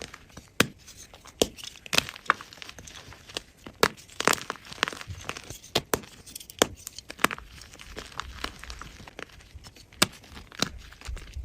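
Blocks of gym chalk being crushed by hand: an irregular run of sharp cracks, the loudest about two, four, six and ten seconds in, with crumbling crunches and fine crackles between.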